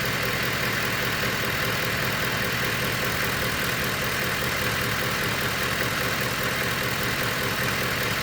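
Ford F-150's 5.4-litre Triton V8 idling steadily with a knocking sound in the engine.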